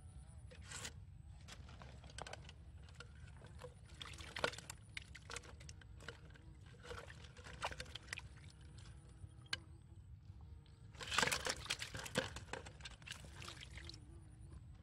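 Wet netting and plastic pipe of a homemade fish trap being handled, with irregular rustles, small knocks and water sloshing and dripping. A louder spell of splashing and rustling comes about eleven seconds in.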